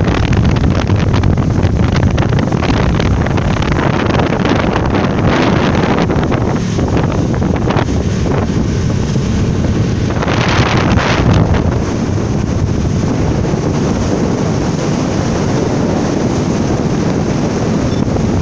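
Wind buffeting the microphone aboard a passenger catamaran running at speed on the open sea, over a steady, dense noise of the boat and the water. A louder hiss comes in for about a second, near the middle.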